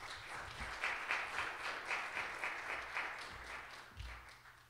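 Audience applauding, a dense patter of claps that thins and dies away near the end.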